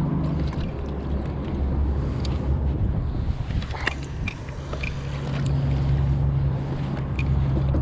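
Boat motor humming steadily under gusty wind on the microphone, the hum growing a little stronger about five seconds in, with a few faint light clicks.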